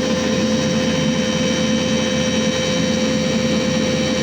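Sany SY210 excavator running steadily, its engine and hydraulics giving an even drone with a steady whine.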